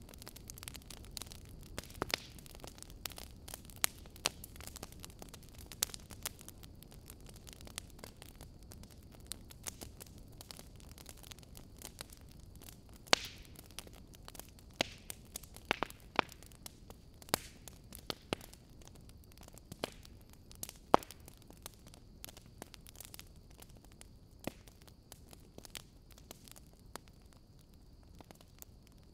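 Irregular sharp crackles and pops, one or two a second, over a faint steady hiss.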